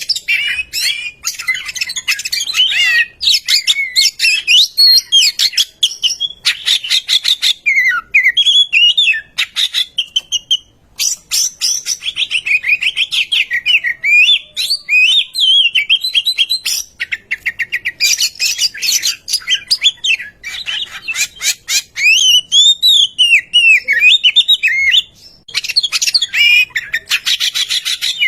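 Oriental magpie-robin singing a loud, continuous, varied song. Clear rising and falling whistles alternate with fast rattling runs of repeated notes, with only brief pauses.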